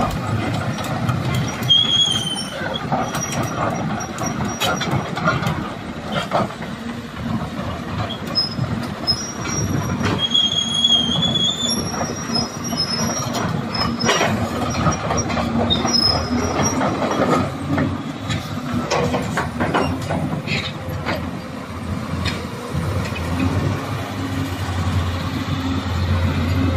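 Heavy-machinery yard noise: a continuous low engine rumble with scattered metallic knocks and clanks, and a few brief high metallic squeals. The rumble steadies into a firmer hum near the end.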